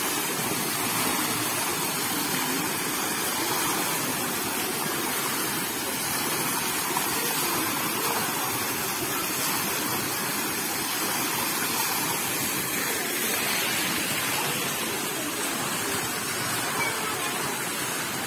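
Steady rushing of falling water.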